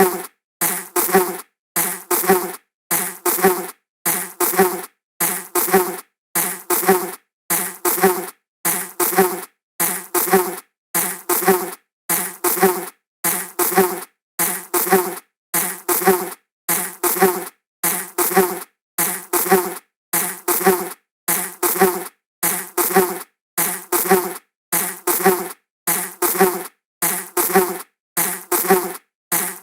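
Buzz of a flying insect passing by, a short pass repeated over and over about once a second. Each pass swells and then cuts off abruptly, with a brief silence before the next.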